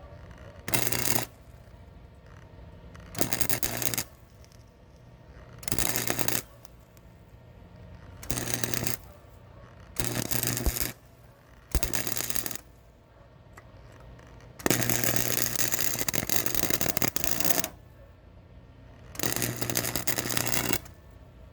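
Electric welding arc crackling in eight separate bursts with a steady low hum, mostly short tack welds of under a second, and one longer bead of about three seconds about two-thirds of the way through, as steel braces are welded in.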